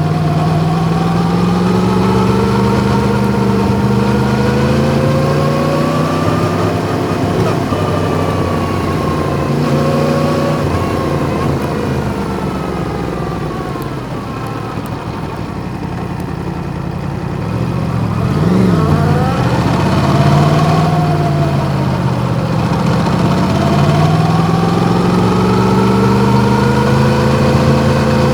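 Yamaha MT-10's crossplane inline-four engine running on the move, its pitch rising and falling slowly with the throttle. About two-thirds of the way through, the revs drop and rise again quickly.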